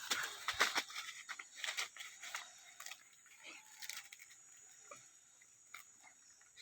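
A dog moving about and playing, with short scuffing and rustling noises, busiest in the first three seconds and then sparser.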